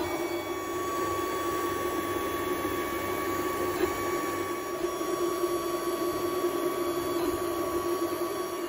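Creality 3D printer fitted with a laser engraving module, its stepper motors whining steadily as they drive the laser head across an engraving pass.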